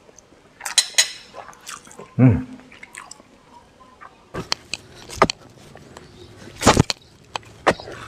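Close-up eating sounds: chewing, with several sharp clicks of a metal spoon against a ceramic bowl, and a short falling hummed "mm" about two seconds in.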